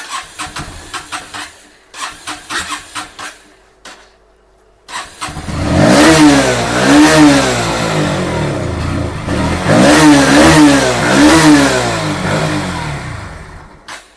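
Bajaj Pulsar NS160 BS6 single-cylinder engine cranking on the electric starter in two tries without catching, then firing about five seconds in and revved up and down several times before dying away near the end. The hard starting and stalling is the starting and pickup fault that the title puts down to the fuel pump.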